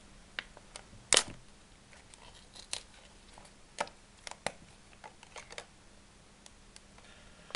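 Crinkling and clicking of a small plastic parts bag being opened and handled, with a sharp crackle about a second in and scattered smaller clicks after.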